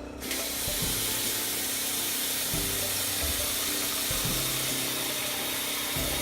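Kitchen tap running steadily, filling a large pot with water, shutting off suddenly near the end.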